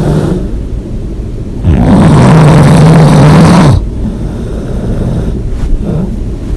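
A person snoring loudly: one long snore with a low buzz starts about a second and a half in and lasts about two seconds, between quieter breaths.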